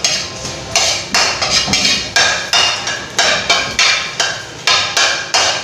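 Metal spatula striking and scraping a steel wok while stirring garlic, in an even rhythm of about three strokes a second, each with a bright metallic ring.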